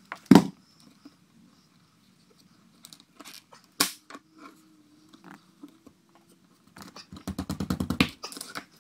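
A Ryobi AirStrike cordless 23-gauge pin nailer fires once, a single sharp crack, driving a pin into a trim board. A knock follows about four seconds in as the nailer is set down on the floor, and near the end comes a quick, even run of rattling taps.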